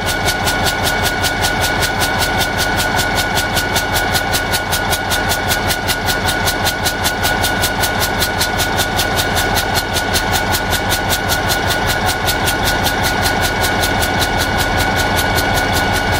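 EMD diesel locomotive engine running steadily, with an even, rapid pulsing of several beats a second and a steady high whine over it.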